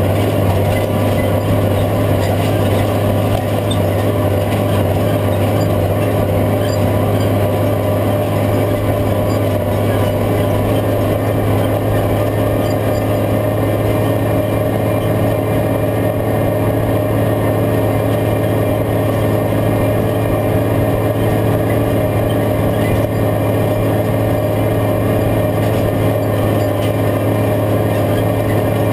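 Case IH 5230 tractor's six-cylinder diesel engine running steadily under load, with an unchanging low hum, as it pulls a field cultivator through the soil.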